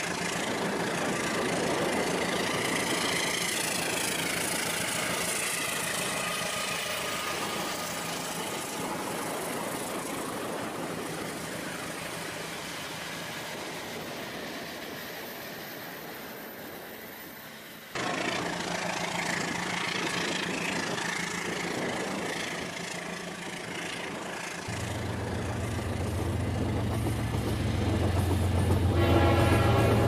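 Toy train running on its track, with train running sounds. The sound changes abruptly about 18 seconds in, a low steady engine hum comes in around 25 seconds, and a horn-like tone sounds near the end.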